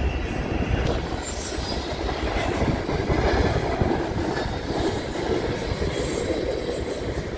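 Freight train cars rolling past: a steady rumble of steel wheels on rail, with brief high-pitched wheel squeals about a second in and again near the end.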